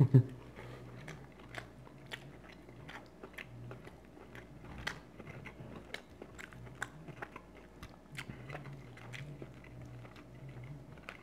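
A person chewing food close to the microphone: irregular soft wet smacks and small clicks of the mouth, several a second.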